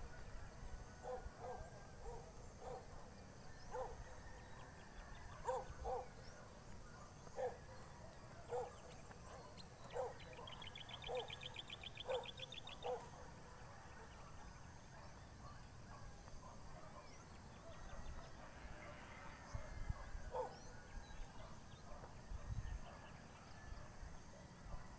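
Faint outdoor animal calls: short, low hoots repeated irregularly every second or so, stopping around the middle with one more later. A rapid high trill runs for a few seconds near the middle.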